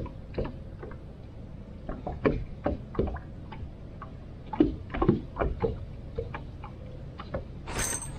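Irregular light knocks and clicks on a fishing boat, a couple of dozen scattered unevenly, with a louder brief rushing noise near the end.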